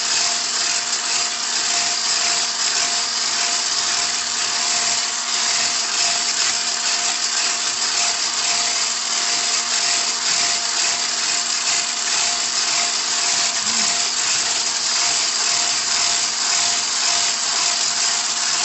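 Electric hand mixer running steadily at speed, its beaters creaming ghee, oil and powdered sugar in a glass bowl, with a constant motor whine.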